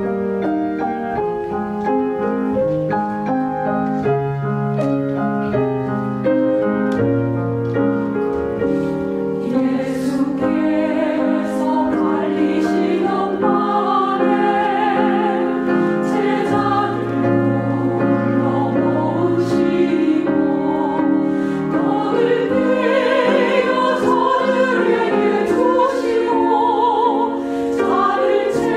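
Women's choir singing a church anthem with piano accompaniment. The piano plays alone at first, and the voices come in about ten seconds in and grow fuller.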